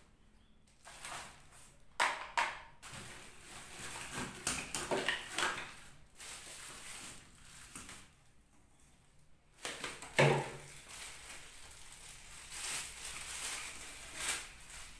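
Clear plastic wrapping crinkling and rustling as a vacuum cleaner's flexible hose is handled and unwrapped, with sharp clicks and knocks of plastic parts about two seconds in and again about ten seconds in.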